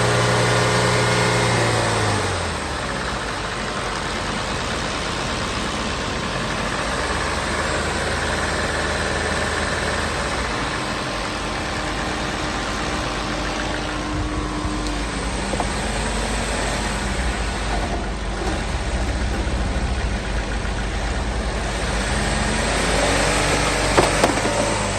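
2013 Buick Verano 2.4L four-cylinder engine held at raised revs, then falling back about two seconds in and running on with a few gentle rises and falls in speed. Its lifter noise is the sign of a lifter fault. A couple of sharp clicks come near the end.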